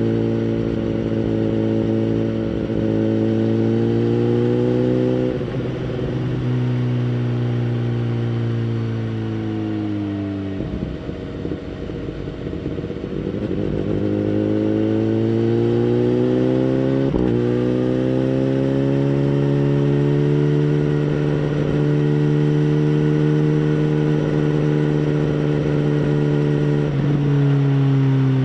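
2011 BMW S1000RR inline-four engine through a Bodis aftermarket exhaust, ridden at steady, moderate speed. The engine note climbs, dips and climbs again with short breaks at the gear changes, then holds steady for a long stretch before dropping near the end.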